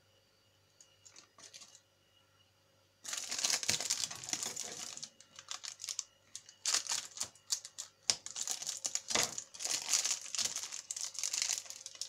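Foil-lined snack wrapper crinkling and crackling in dense bursts of sharp crackles as it is handled while a chocolate-coated alfajor is broken in half over it. A few faint rustles come first, the loud crinkling starts about three seconds in, and it pauses briefly twice.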